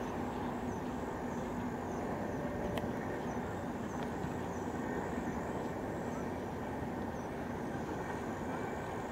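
Steady outdoor background noise with a faint low hum, and faint high chirps repeating about twice a second.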